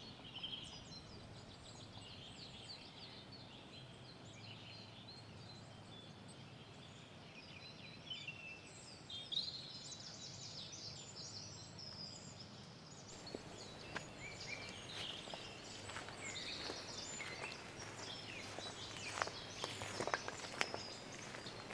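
Several small songbirds singing faintly: many short high chirps and trills from different birds over a steady outdoor background, with a few soft clicks in the second half.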